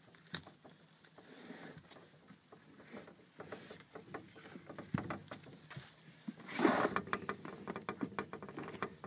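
Handling noise from a phone camera held down at the boat's carpeted floor: scattered taps, knocks and rustles, with a louder noisy rush about two-thirds of the way in.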